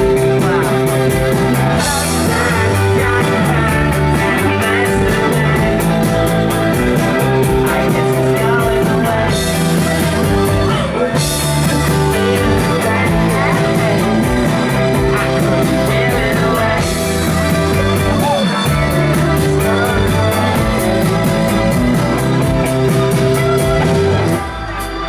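Live rock band playing, with a steady drum beat under guitar and bass. The music drops in level about a second before the end.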